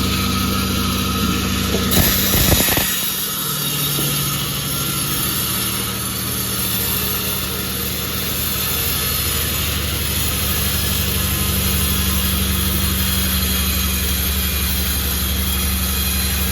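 Sawmill machinery running steadily with a low, even hum, with a brief clatter of knocks about two seconds in.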